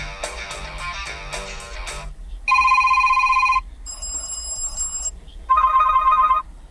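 Asus ROG Phone 6 default ringtones previewed one after another, each cut off after a second or two. There are four in turn: a many-note melody, a steady ringing beep, a high chiming tone, and a pulsing electronic ring.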